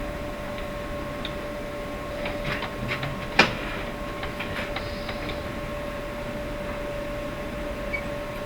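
Metal lathe running with a steady hum, with a few light clicks and one sharp metallic click about three and a half seconds in.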